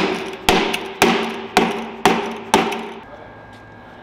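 Lid being struck down onto a filled five-gallon plastic bucket: six sharp strikes about half a second apart, each with a short ring, stopping about two and a half seconds in.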